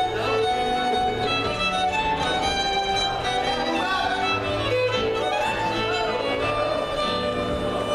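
Live contra dance music from a small band, with a fiddle carrying the tune.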